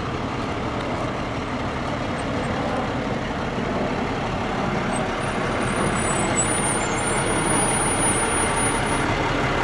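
Fire engine's diesel engine running as the truck rolls slowly toward the listener, growing gradually louder.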